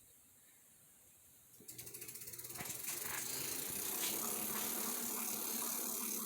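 About two seconds in, the RadRunner e-bike's rear hub motor kicks in by itself, spinning the wheel: rapid clicking that speeds up into a steady whir. The motor is running without any throttle input and won't shut off, the electrical fault being chased.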